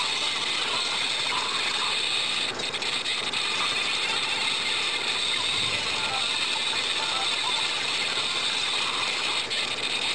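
Continuous fast scratching and rubbing of a pencil and a rubber eraser on drawing paper.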